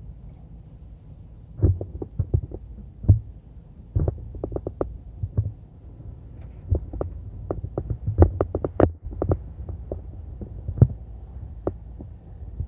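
Irregular series of short, sharp knocks and thumps, some in quick clusters of three or four, over a steady low hum.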